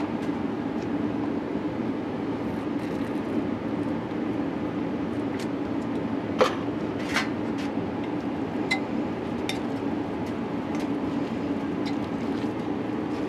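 A metal fork clinking and tapping now and then against a slow-cooker crock while mixing barbecue sauce into shredded pulled pork, the clinks coming mostly in the second half. Under it runs a steady low hum.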